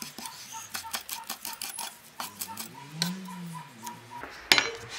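Kitchen knife chopping parsley on a wooden cutting board: a quick run of chops, several a second, for about two seconds, then a few slower ones, and a louder knock about four and a half seconds in.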